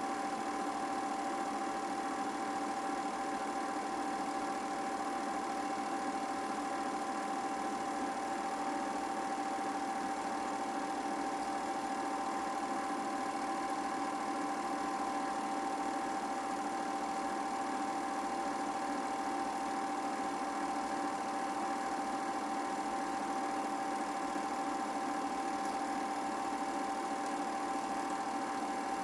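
8mm film projector running steadily: an even mechanical whir with a steady tone that does not change.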